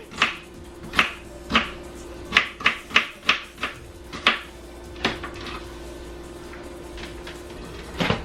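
Knife slicing onions on a cutting board: a run of about a dozen sharp, uneven chopping knocks that thins out after about five seconds, with one more knock near the end.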